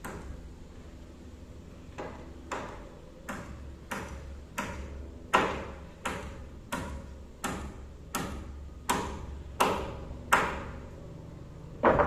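Hammer driving nails through timber purlins into roof rafters: a steady run of sharp strikes, about one every 0.7 s, each with a short ringing tail. A pause comes near the end before a final loud blow.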